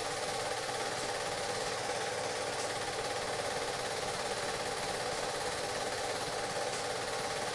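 A steady, unbroken machine-like drone with a fast, even flutter, unchanging in level and pitch throughout.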